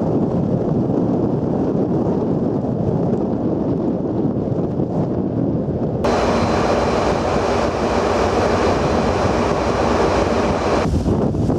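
Wind buffeting the microphone on the deck of a Japan Coast Guard patrol ship under way, over the steady rush of the sea along the hull and the ship's engines. About halfway through the sound changes abruptly and becomes brighter, with a steady engine drone and a faint high whine, and it changes again near the end.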